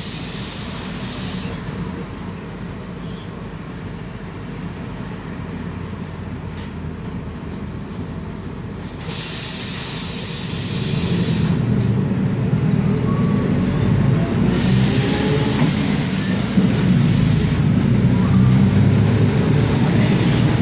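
Mercedes-Benz OF-1721 city bus's six-cylinder diesel and drivetrain running under way, a low steady rumble that grows clearly louder about halfway through as it pulls harder. Stretches of hiss come and go over it.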